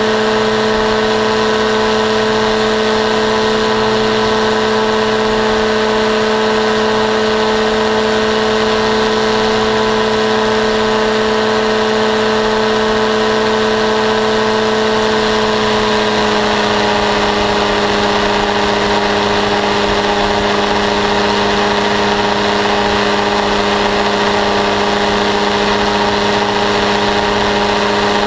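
Paramotor engine and propeller running steadily in flight, a loud droning tone that drops slightly in pitch about sixteen seconds in.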